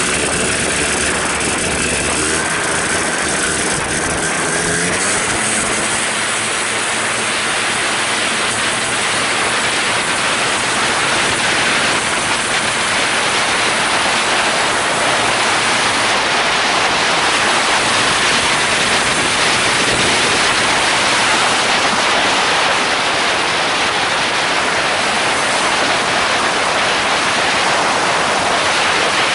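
Polini Thor 250 single-cylinder two-stroke engine on a homemade microlight trike, driving a pusher propeller. It rises in pitch over the first few seconds, then runs at high power under a steady rush of wind noise on the microphone.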